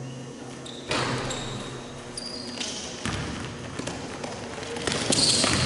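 Basketball game in a large gym: a sudden loud knock about a second in, then sneakers squeaking on the hardwood court and the ball bouncing as players run up the floor, all echoing in the hall.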